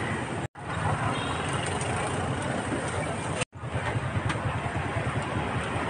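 Steady street traffic noise, a low rumble of passing vehicles, which breaks off twice into brief silence.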